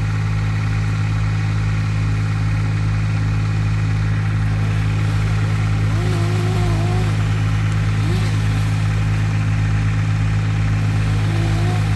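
Engine of the tree service's heavy equipment running at a steady speed, a constant low hum that does not change. A few faint short higher sounds come through a little past the middle.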